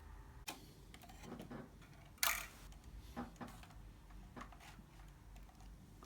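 Scattered small clicks and rustles of a thin wire being threaded through nails and fitted around a drone, with one louder brief scrape about two seconds in.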